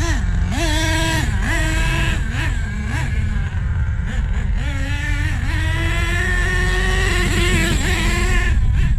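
HPI Savage nitro RC truck engine being revved in quick throttle blips, its pitch rising and falling several times, then held at a steadier higher rev for about three seconds before dropping near the end. The engine is tuned rich: gurgly, with plenty of fuel.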